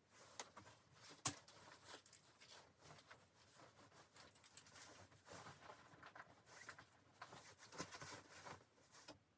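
Quiet, irregular rustling and handling noises with scattered small clicks, one sharper click about a second in.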